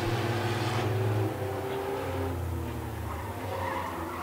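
Race cars' engines running as they lap the track. The engine note and loudness drop a little after a second in.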